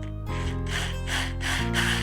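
Background music with held notes. From about half a second in, a rhythmic rasping of about four strokes a second plays over it, becoming a steady hiss near the end.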